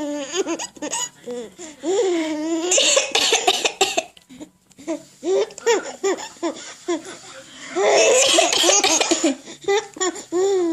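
A baby laughing in repeated short bursts, set off by an adult's imitated sneezes. Two hissy sneeze-like bursts come, one about three seconds in and one in the latter half.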